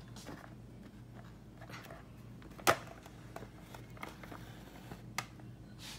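Small plastic toy figures being handled and set onto a plastic display case shelf: a sharp click about halfway through, a smaller click near the end, and a few faint taps in between.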